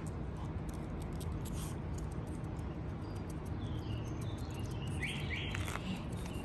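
Steady outdoor background noise, mostly low, with a few short high chirps about four to five seconds in.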